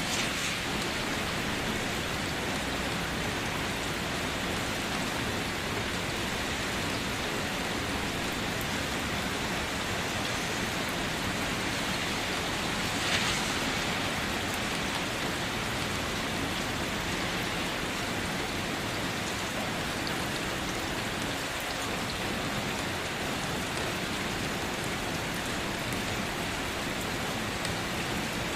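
Light rain falling steadily, a constant even patter of drops on a surface, with one slightly louder splash about halfway through.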